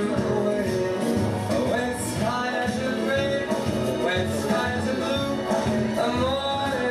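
Music with singing: the song the line dancers are dancing to, playing steadily.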